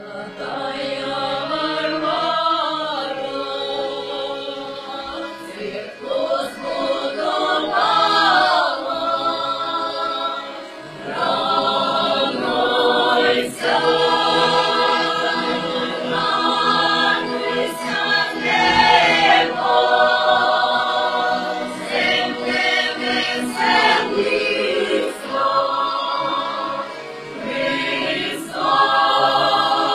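Folk choir singing a song in several parts, in phrases with short breaks between them.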